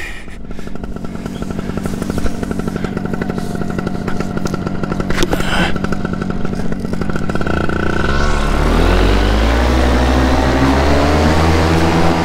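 Paramotor's Vittorazi Atom two-stroke engine running steadily at low throttle, then opened up about two-thirds of the way in, getting much louder and climbing in pitch as it goes to takeoff power.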